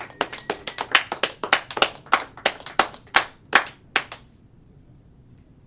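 Scattered clapping from a small audience, heard as distinct single claps rather than a dense wash, dying away about four seconds in.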